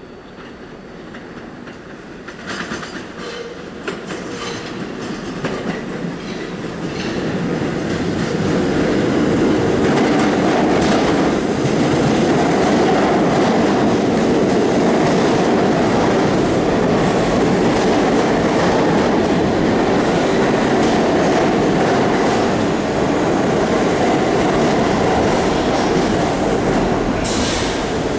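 1975 R46 New York City subway train running into the station. Its wheels click over rail joints as it comes closer, building to a loud, steady rumble as the cars pass close by.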